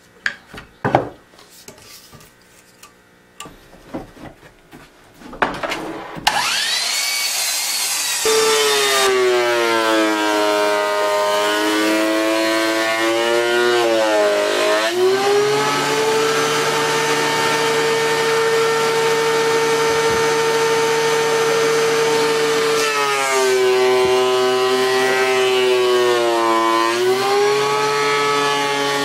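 A few knocks and clicks as boards are handled, then a DeWalt benchtop thickness planer starts about six seconds in and runs loud and steady. Its pitch drops twice as eastern red cedar boards feed through and load the motor.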